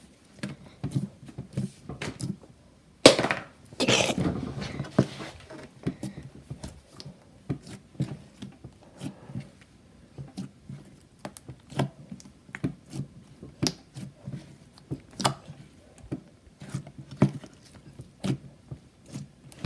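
Hands kneading and stretching a stiff slime, making a run of short wet clicks and squelches, with a louder thump about three seconds in. The slime is still tearing instead of stretching.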